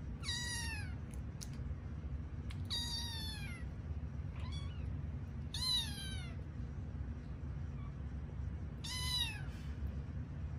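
Kitten meowing five times, each short high meow falling in pitch, the third one fainter.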